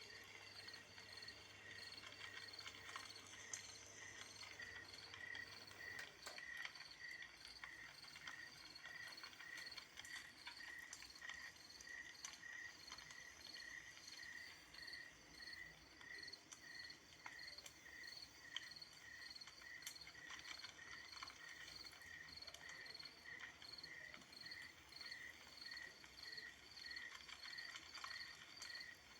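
Faint dawn chorus of a single calling animal: a short high-pitched chirp repeated very regularly, about three every two seconds, with a fainter low hum that stops about six seconds in.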